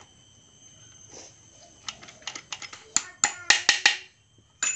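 Sharp metallic clicks and clacks from a motorcycle gearbox's shift forks and shift drum being fitted and worked into place, an irregular series starting about two seconds in, loudest and quickest a little after three seconds.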